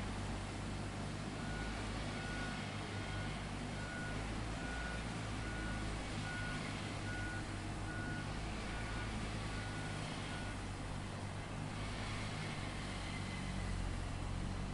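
Backup warning alarm on heavy construction machinery beeping a dozen or so times, a little under once a second, and stopping about ten seconds in, over the steady low rumble of a diesel engine running.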